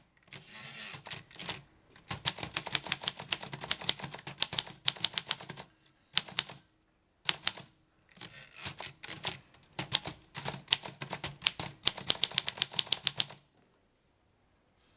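Groma Kolibri portable typewriter from about 1960 being typed on: quick runs of key strikes broken by short pauses, after a smoother sliding noise about a second long at the start. The typing stops shortly before the end.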